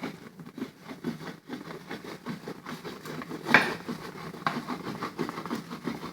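A knife scraping and sawing into a thin plastic soda bottle in short, irregular strokes, with one sharp crack of the plastic about three and a half seconds in.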